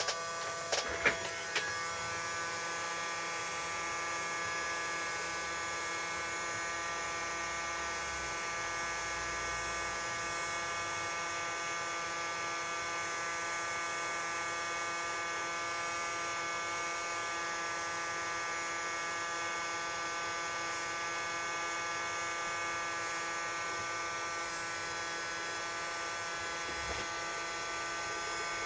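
Cheap hot air rework gun's blower fan running steadily at airflow setting 4, a constant whine made of several fixed tones. A few light clicks in the first two seconds.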